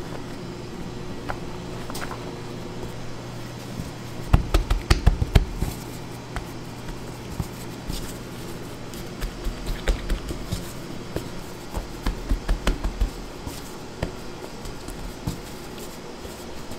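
Hands working at a bakery bench: runs of quick taps and soft thumps, several a second, loudest about four seconds in and again around ten and twelve seconds in. A steady hum of kitchen equipment runs beneath.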